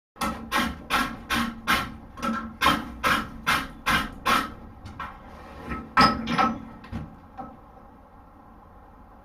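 Blacksmith's hammer striking a horseshoe on an anvil, with a steady rhythm of ringing blows at about two and a half a second for some four seconds. Then a few scattered blows, and the strikes stop about halfway through.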